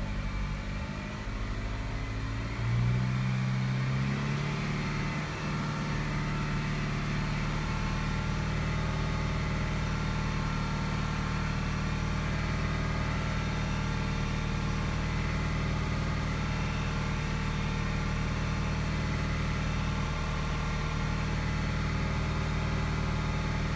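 A 2015 Chevy Malibu's four-cylinder engine is revved up in steps over the first few seconds, then held at a steady fast idle of about 2200 RPM.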